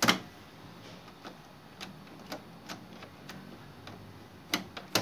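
A sharp click, then light ticks about twice a second, with two louder clicks near the end.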